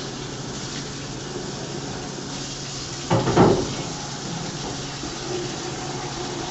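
Hot water running steadily from a tap into a plastic container in a stainless steel sink, filling it. About three seconds in there is a brief louder knock and splash as a can of malt extract is set into the water.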